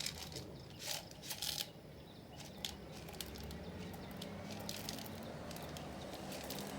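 Beeswax being measured out onto a scale: a few light clicks and taps in the first few seconds, then faint scattered ticks over a low steady hum.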